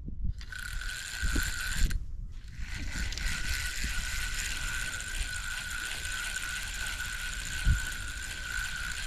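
Fishing reel whirring with a ratcheting buzz and a steady whine, in two stretches: a short one near the start, then after a brief pause a long steady one.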